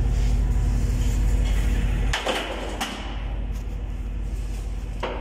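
A ship's main engine being turned by its electric turning gear: a steady low rumble that stops about two seconds in with a metallic clunk and a second knock just after, leaving the engine-room background hum. Another short knock comes near the end.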